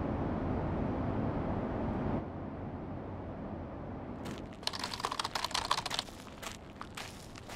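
Plastic rubbish bags full of waste rustling and crinkling as they are carried: a dense crackling burst about four seconds in, thinning into scattered crackles. Before it, a steady low rumble of noise stops about two seconds in.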